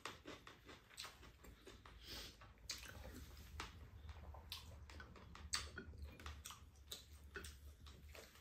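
Quiet eating sounds: irregular light clicks of spoons tapping and scraping ceramic rice bowls, with chewing. A low steady hum comes in about three seconds in.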